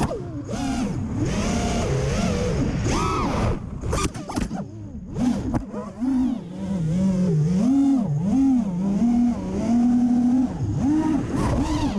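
Brushless motors and DAL T5040 props of a TBS Source One FPV quadcopter whining, the pitch rising and falling continuously with the throttle. A few sharp knocks come between about four and five and a half seconds in while the motor sound briefly dips, then the whine comes back up and holds steadier.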